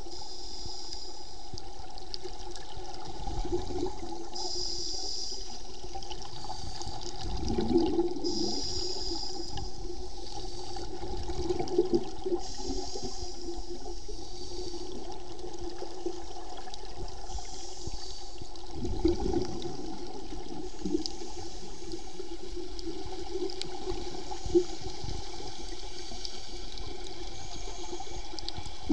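Underwater sound of scuba divers breathing through their regulators: exhaled bubbles gush and gurgle out every few seconds over a steady low hum.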